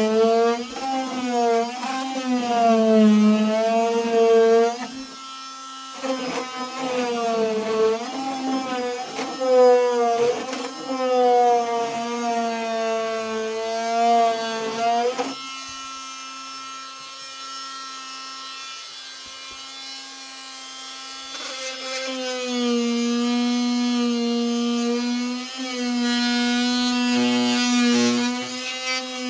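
Fein FMM250Q oscillating multi-tool running as it strips old sound-deadening material. It makes a loud buzzing whine whose pitch dips and recovers as the blade bites in, eases to a lighter steady tone about halfway through, then comes back louder and steadier near the end.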